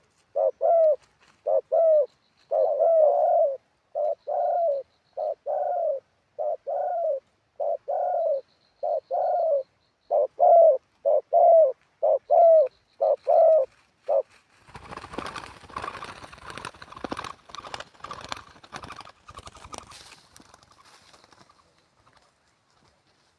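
Spotted dove cooing: a long run of short, hoarse coo notes repeated in phrases. About fourteen seconds in the cooing stops and a scratchy rustling and knocking noise takes over, fading out near the end.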